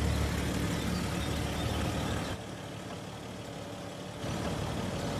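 A car driving, a steady low engine and road hum that drops quieter for a couple of seconds in the middle, then comes back.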